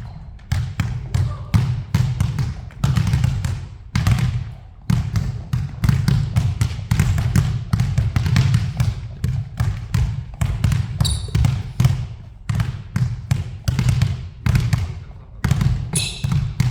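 Basketball being dribbled hard and fast in a ball-handling drill, about three bounces a second with a thump on each bounce. A few brief high squeaks come through now and then.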